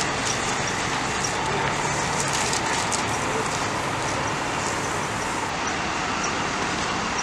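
Steady rumble of idling emergency vehicles with road traffic noise.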